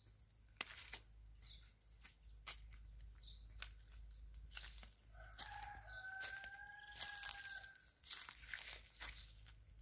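A rooster crowing once, faintly: one long held call starting about halfway through, over short high chirps that repeat about once a second.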